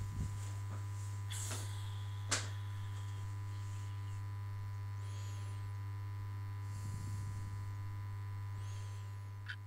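A steady low electrical hum, with a sharp click about two seconds in and a few faint high chirps later on.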